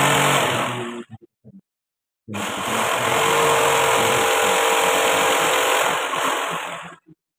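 Small handheld electric router cutting into a wooden door panel, running loudly, stopping about a second in, then starting again a second later and running for several seconds before cutting off near the end.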